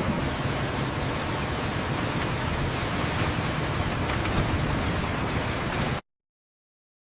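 A steady rushing noise that cuts off suddenly to dead silence about six seconds in.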